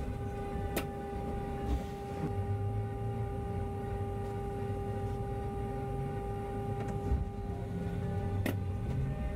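Bus interior with the bus idling while stopped: a steady low rumble and a constant hum, with two sharp clicks, one about a second in and one near the end.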